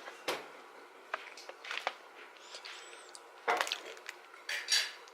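Scattered short crisp clicks and a few brief crunches from eating an Oreo cookie and its cream filling.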